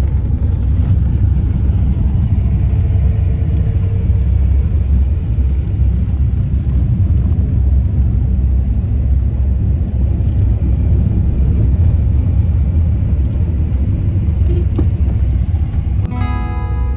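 Steady low rumble of road and engine noise inside a moving van's cabin. Music starts just before the end.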